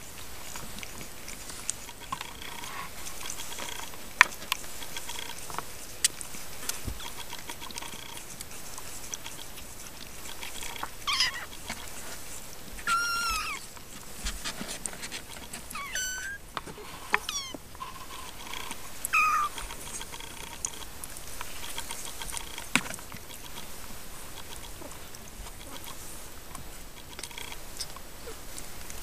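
Three-week-old Siamese kittens mewing: a handful of short, high-pitched mews in the middle, some gliding down in pitch, over faint rustling and scattered small clicks.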